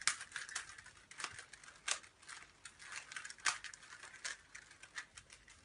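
Rubik's cubes being turned by hand: irregular quick plastic clicks and short rattles as the layers snap round.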